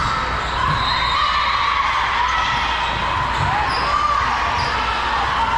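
Volleyball players' shoes squeaking on a gym court, a string of short rising-and-falling squeaks, with a few dull thumps over the steady din of a large gym hall.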